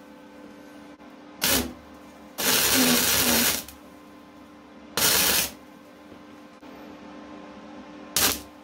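Wire-feed MIG welder arc crackling and buzzing in four short bursts, the longest about a second, as blobs of weld are laid into cracks in a wrought iron axe head. A faint steady hum runs between the bursts.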